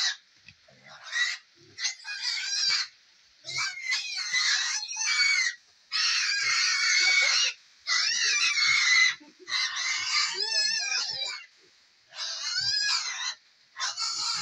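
Piglets squealing: a string of about ten shrill squeals with wavering pitch, each lasting a second or so, with short gaps between them.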